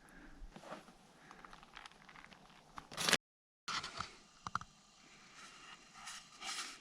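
Faint clicks, scrapes and rustles of food and utensils being handled, with one short, louder scrape about three seconds in, followed by a half-second drop to dead silence.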